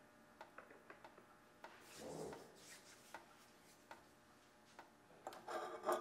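Non-stick frying pan on a stovetop: light scattered ticks, a soft rubbing swish about two seconds in, then a louder scrape and rattle near the end as the pan is shifted and lifted to swirl the oil, leaving a faint metallic ring.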